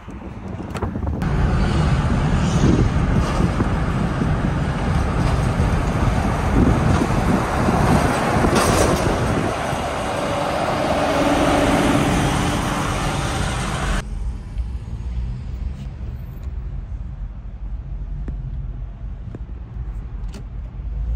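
Road and engine noise from inside a moving car driving alongside a car-carrier truck. About two-thirds of the way through, the sound drops suddenly to a much quieter car cabin.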